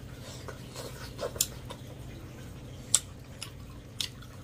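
Eating by hand: chewing and wet mouth smacks, with fingers squishing rice and curry on a plate, and a few sharp clicks, the loudest about three seconds in. A steady low hum runs underneath.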